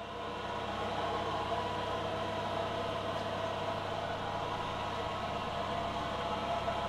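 LPG forklift engine idling steadily, a constant hum that fades in over the first second.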